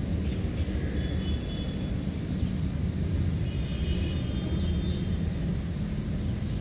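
Steady low engine rumble, with faint short high-pitched tones about a second in and again around the middle.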